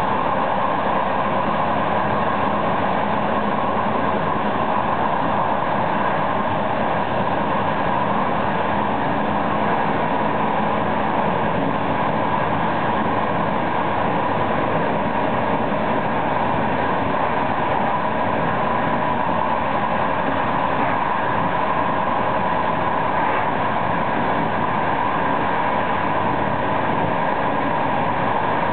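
Intercity passenger train running at speed, heard from inside its last coach: a steady rumble and hiss of wheels rolling on the rails, unbroken.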